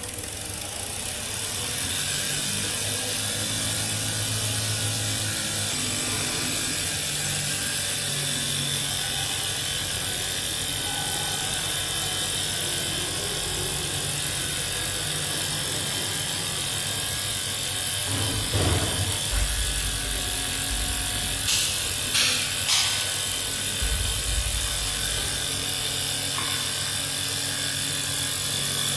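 Small homemade steam engine running steadily: a continuous steam hiss with mechanical ratcheting clatter, building up over the first couple of seconds. A few short, louder knocks come a little past the middle.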